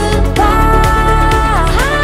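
Background electronic pop music with a steady beat; a held melody note bends down and back up near the end.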